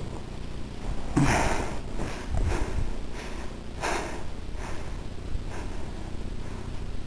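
A person close to the microphone sniffing and breathing: a run of short noisy sniffs, the loudest about a second in and again near the middle, fading out towards the end.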